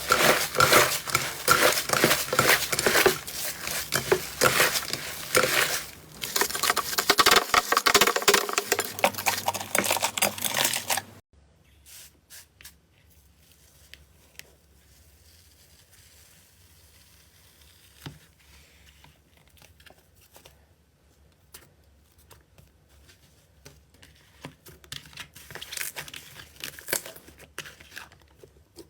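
Slime being squished and stretched, with dense crackling and popping. Loud for about the first eleven seconds, it cuts off suddenly to faint scattered clicks, then picks up again near the end.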